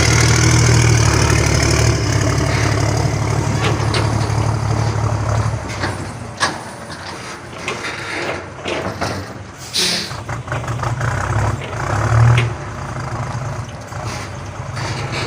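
A truck's diesel engine runs with a steady low drone for the first five or six seconds, then drops quieter. Scattered knocks and a brief hiss of air follow about ten seconds in, before the engine drone rises again near twelve seconds.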